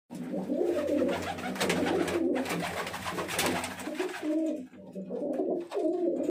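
Domestic pigeons cooing: a continuous run of low, throaty coos, with a brief pause about three-quarters of the way through.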